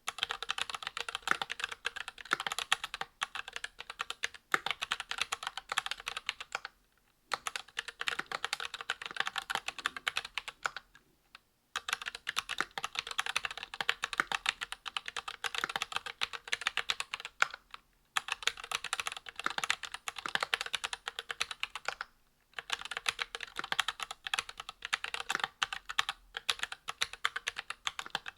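Fast typing on a custom mechanical keyboard: ZealPC Zealios V2 62g tactile switches with Krytox 105-lubed springs, GMK keycaps on a brass plate in an aluminium Monstargear XO V2 case. Continuous runs of keystroke clacks broken by a few short pauses.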